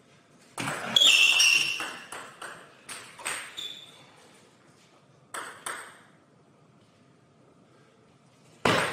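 Table tennis ball striking the table and bats: a quick run of sharp, ringing pings about two a second over the first few seconds, two more about five and a half seconds in, and a fresh run starting near the end.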